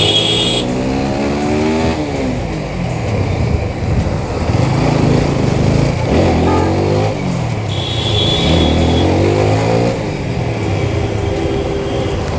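Motorcycle engine pulling away under throttle, its pitch rising for about two seconds and then dropping, rising again about six seconds in and then running steadily near the end. A brief high-pitched tone sounds at the start and again about eight seconds in.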